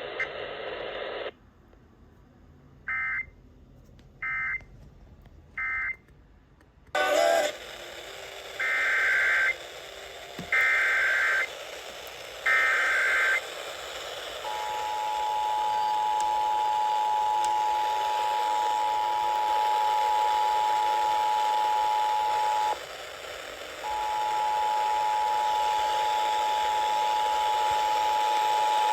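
Emergency Alert System tones heard over radio. First come three faint short digital data bursts, the end-of-message code closing the previous test. Then the hiss changes and three loud, warbling data bursts of about a second each follow: the SAME header that opens the next test. Then the steady two-tone attention signal starts, cuts out for about a second, and resumes.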